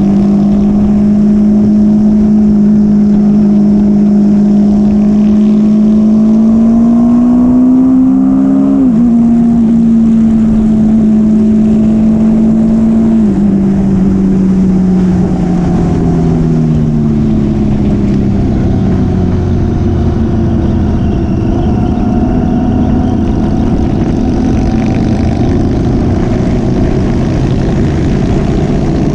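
Motorcycle engine running under way, mostly at a steady pitch. Its revs climb for a few seconds about seven seconds in and then drop sharply, as at a gear change, and they fall away twice more later on as the bike slows.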